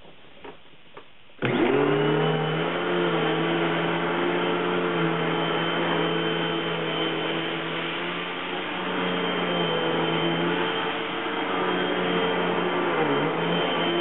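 Hoover WindTunnel T-Series bagged upright vacuum switched on about a second and a half in: the motor starts suddenly and spins up, then runs steadily with a high whine while it is pushed over carpet. Its pitch dips briefly near the end.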